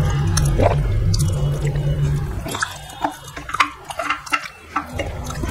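Drinking and eating at the table: juice gulped from a glass, then wet mouth clicks and fingers picking food off a plate, in a scatter of short ticks. A low steady hum underneath stops about halfway through.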